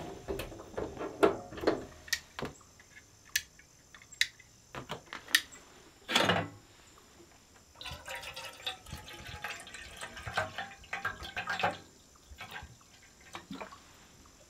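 Water being poured, with scattered light knocks and clinks of handling, and one louder knock about six seconds in.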